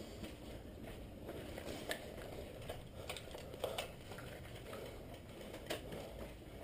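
Faint scattered clicks and taps, a few seconds apart, over a low steady background rumble.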